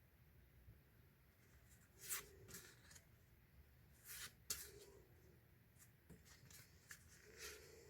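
Faint rustling and sliding of paper or card being handled, in a few short strokes about two, four and seven seconds in.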